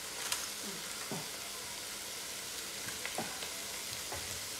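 Meat and vegetables sizzling in a steel pot on a portable butane gas stove: a steady hiss, with a few light clicks and knocks.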